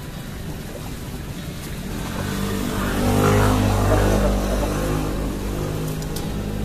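A motor vehicle passing by on the road: engine hum and tyre noise swell to a peak about three to four seconds in, then fade away.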